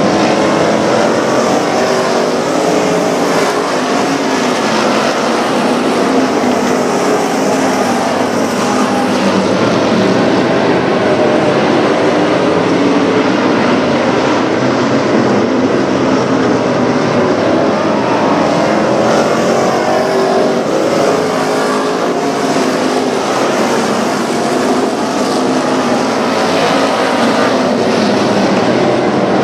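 Several dirt-track stock car engines running together at racing speed. They make one loud, continuous sound whose many pitches keep rising and falling as the cars accelerate and lift through the turns.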